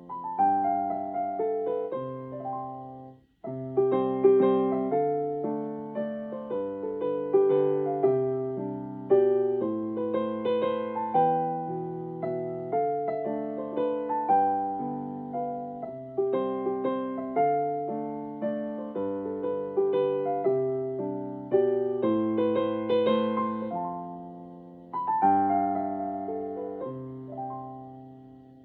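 Gentle piano-like music: a plucked melody with ringing, decaying notes over low bass notes at an even, unhurried pace. There is a brief break about three seconds in, and the music stops near the end.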